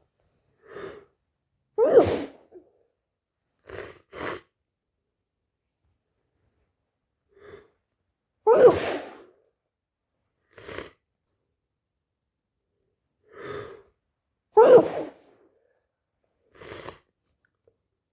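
A person with a cold sneezing three times, about six seconds apart. A quieter short sound comes just before each sneeze, and brief quieter sounds fall between them.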